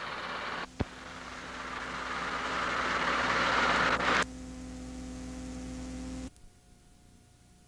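Old videotape recording noise: a rushing hiss that grows louder, with a click about a second in, then cuts abruptly to a steady low hum with a faint tone as the picture goes blank. The hum stops suddenly near the end.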